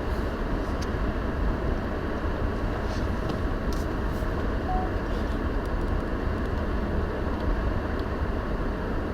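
Strong Arctic outflow wind blowing hard across the microphone: a steady, deep rumbling wind noise with a few faint ticks.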